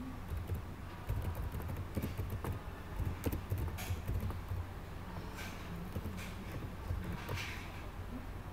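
Computer keyboard being typed on: irregular, scattered key clicks over a steady low hum.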